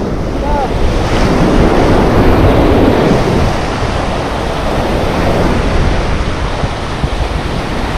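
Sea surf washing on the shore with wind buffeting the microphone: a steady, loud rushing noise.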